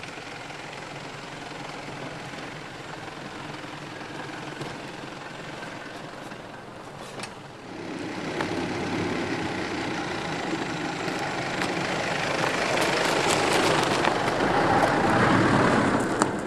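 Mitsubishi Pajero SUV driving slowly over a rough forest dirt track, its engine running at low revs with tyre noise. It grows louder from about halfway in as the vehicle comes closer, and scattered sharp cracks from twigs and roots under the tyres can be heard near the end.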